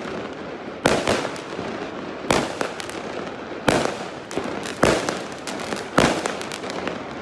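Fireworks going off: five loud bangs about a second or so apart, over a continuous crackle of further explosions.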